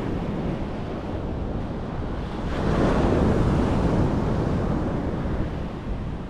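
Ocean surf washing on a beach, with wind buffeting the microphone; a louder wave rushes in about two and a half seconds in and lasts a couple of seconds.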